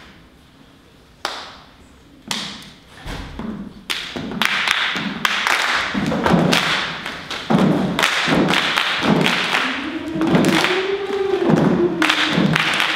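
A girls' chorus doing body percussion: a couple of lone claps or slaps, then a steady rhythm of claps and thumps that builds up. About two-thirds of the way through, the choir's voices start singing over the beat.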